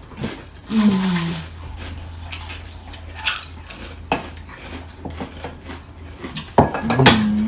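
Chopsticks clicking against ceramic plates and bowls during a meal, with one sharp click about four seconds in. A short falling hum of a voice comes about a second in, and a voice starts near the end.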